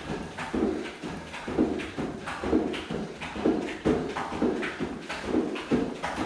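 Bare feet tapping in turn on the top of a plastic aerobic step, a steady rhythm of about two taps a second.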